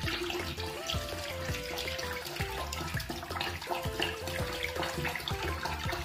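Zep Liquid Heat liquid drain cleaner poured in a steady stream from a jug into a bathroom sink drain, splashing on the porcelain basin. Background music with a steady beat plays over it.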